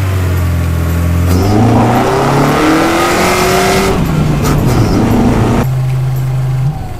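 Honda CRX's four-cylinder engine running steadily, then pulling harder with the revs climbing from about a second in. The sound changes abruptly twice after that, ending in a steady engine note that cuts off just before the end.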